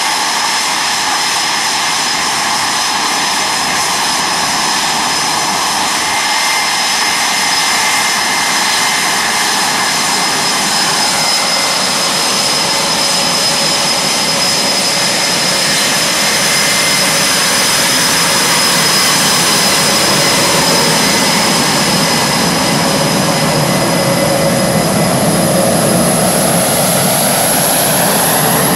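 Jet whine and roar from F/A-18F Super Hornets' twin General Electric F414 turbofans at taxi power as the fighters roll past. It is steady throughout, growing a little louder, and a sharper high whine comes in near the end as a jet passes close with its exhausts toward the listener.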